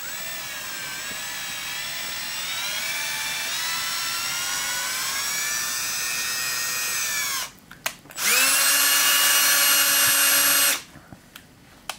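Cordless drill turning a 5 mm thread tap to cut threads in a hole in the arm of a Bernina 217 industrial sewing machine. A long run of motor whine rises slowly in pitch, stops about seven seconds in, then a shorter, louder run follows at a steady pitch, with a few light clicks between and after.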